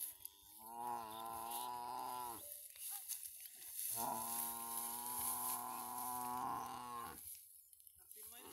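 Water buffalo mooing twice, two long, low calls of about two and three seconds. The first call drops in pitch at its end.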